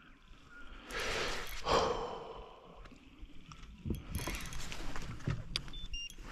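Fishing reel clicking and ratcheting as line is worked during the fight with a large hooked brown trout, with a noisy swell about a second in and a run of sharp ticks from about four seconds.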